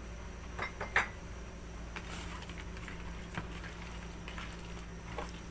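A few light clicks and knocks, the sharpest about a second in, as a hand handles milkfish in a basin and works the calamansi, soy sauce and pepper marinade into the skin. A faint steady hum runs underneath.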